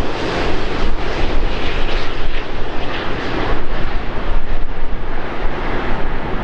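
Jet airliner's engines passing close overhead on final approach to land: a loud, steady rushing noise.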